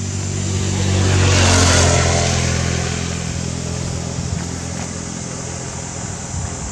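A motor vehicle passing close by: its low engine hum grows louder to a peak about a second and a half in, with a rush of road noise, then fades away.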